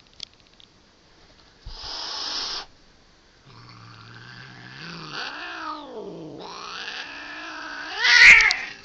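Grumpy domestic cat hissing once, then letting out a long, wavering growl-moan that swells into a loud rising yowl near the end: an annoyed cat warning someone off.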